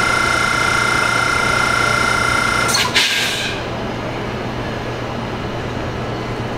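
JR Freight HD300 hybrid locomotive standing with its equipment running, a steady high-pitched whine of several tones over a low hum. About three seconds in there is a sharp click and a short hiss, the whine cuts off, and a lower steady hum carries on.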